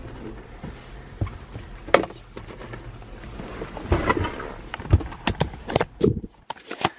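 A series of irregular knocks and thuds inside a car, the strongest about five seconds in, with handling noise near the end as the camera is picked up.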